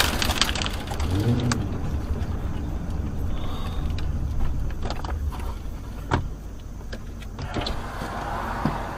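Car interior sound of a car slowing down to nearly a stop: a steady low road and engine rumble that fades as it slows, with a few sharp clicks.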